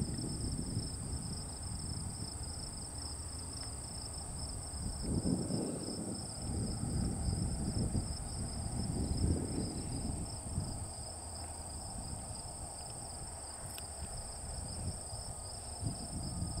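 Steady chorus of insects, two continuous high trills, one with a fast pulsing edge. Underneath is a low rumbling noise that swells between about five and ten seconds in.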